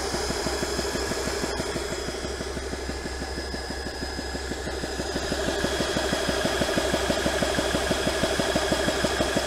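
JTS portable high-pressure air compressor running under load, its pump beating in a fast, even chug while it fills an airgun with the pressure climbing past 2,000 psi. A faint steady high whine runs underneath, and the pumping grows a little louder about halfway through.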